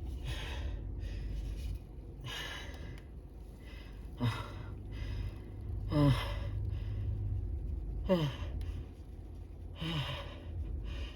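A person's gasping breaths as a sneeze builds. Noisy breaths come first. From about four seconds in there are four short 'ah' gasps, each falling in pitch, roughly two seconds apart.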